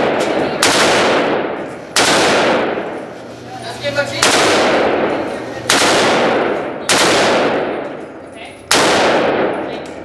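Rifle gunfire in an indoor range: six sharp, loud reports spaced one to two seconds apart, each ringing on in a long echo that fades before the next.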